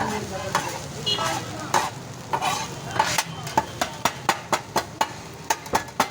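Kothu parotta being chopped on a hot iron griddle (tawa): metal chopping blades striking the griddle and the food with sharp clanks over a sizzle. The strikes are irregular at first and settle into a quick, even rhythm of about four a second from around halfway.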